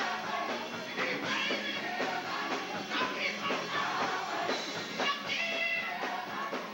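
Gospel choir singing a lively up-tempo song with instrumental backing, the beat marked by steady handclaps.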